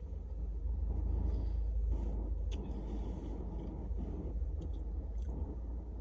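A person chewing chicken nuggets close to the microphone, with a few small clicks from the mouth, over a steady low rumble.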